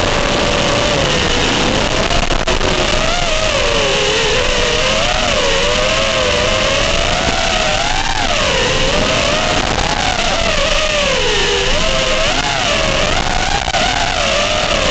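FPV quadcopter's electric motors and propellers whining, the pitch constantly rising and falling with the throttle, over a loud rushing hiss and a steady high tone.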